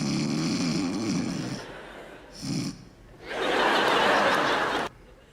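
A woman's loud, comic snoring: a long low rattling snore at the start and a short snort about two and a half seconds in, followed by a burst of audience laughter.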